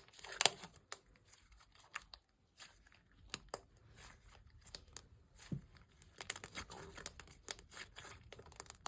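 Butter-textured slime being squished, pressed and stretched by hand, giving irregular sticky crackles and little pops.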